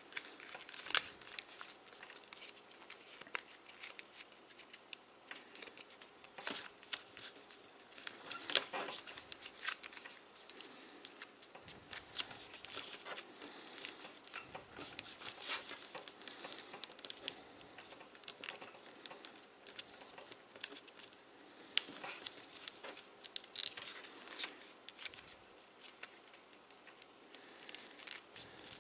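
Paper crinkling and rustling as fingers fold, roll and press creases into a folded paper model, in short irregular crackles with small pauses between them.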